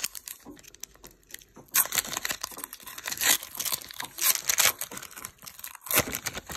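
Foil Pokémon card booster pack being torn open and its wrapper crinkled: a run of sharp crackles and rips, with louder tears around two, three and four seconds in and again near the end.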